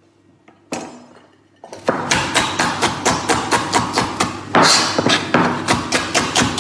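Chef's knife chopping vegetables fast on a cutting board. A single knock comes about a second in, then rapid, even chopping at about five strokes a second.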